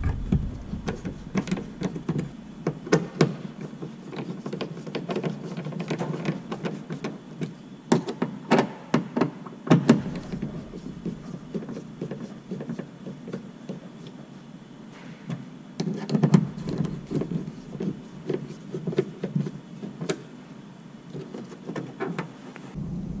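Scattered clicks, light knocks and plastic rattles of hand work on a car door, as T20 screws are driven in to fasten a door woofer into its plastic mounting. The knocks bunch up twice, about eight to ten seconds in and again around sixteen seconds.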